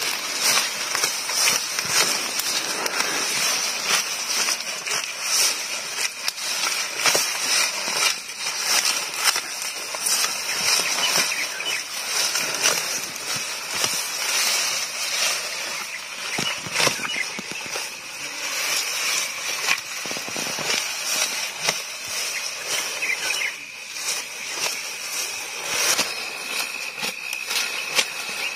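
A water buffalo grazing at close range, tearing and munching tall green grass in a steady run of crackling, rustling snaps. A steady high-pitched drone sits in the background.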